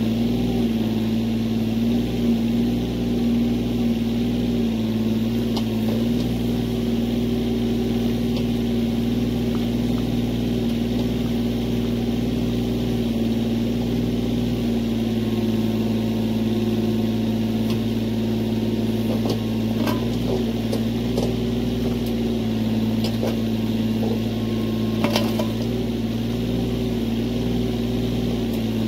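An engine running steadily at an even speed, with a few light knocks and clicks about two-thirds of the way through.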